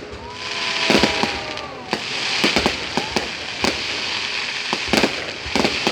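Aerial fireworks display: shells bursting in a string of sharp bangs, about a dozen at irregular spacing, over a continuous hiss.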